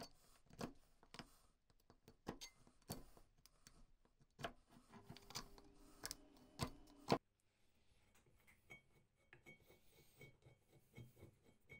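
A handheld scraper blade scraping caked dirt off the metal parts of an old potato slicer, in short irregular strokes, with a sharp click about seven seconds in. After that only faint scratching and light taps.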